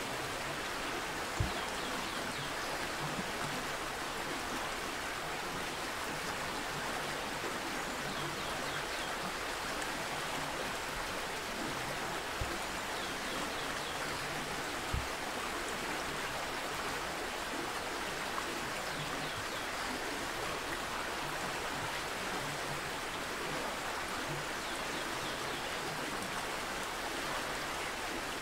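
Steady rush of a flowing stream, with a few faint high chirps over it and three soft low knocks, the first about a second in.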